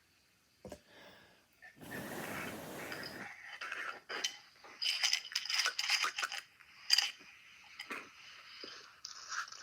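A sleeping man snoring: one long rasping snore about two seconds in, lasting over a second, then several seconds of irregular noisy breathing with many small clicks.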